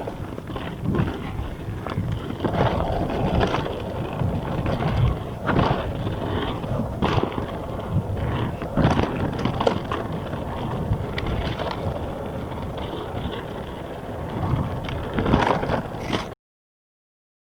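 Mountain bike descending a dry dirt trail: a steady rumble of tyres on the ground, with frequent knocks and rattles as the bike rolls over roots, small drops and jumps. The sound cuts off suddenly about a second before the end.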